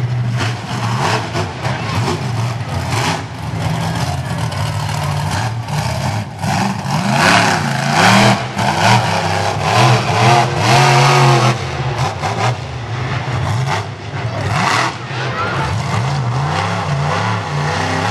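Monster truck engine revving up and down repeatedly during a freestyle run, loudest for a few seconds in the middle.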